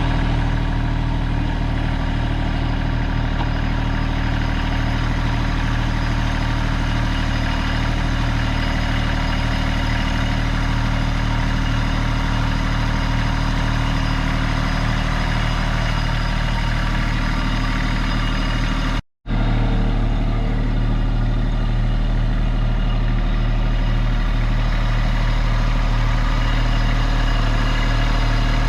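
Kubota LX2610 compact tractor's diesel engine running steadily at a constant speed. The sound drops out for a moment about two-thirds of the way through, then carries on the same.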